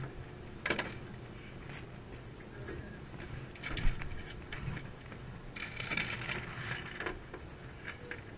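Handling noises as a scup is unhooked and held on a boat's deck: a sharp click just under a second in, a thump about four seconds in, and a rustle around six seconds, over a steady low hum.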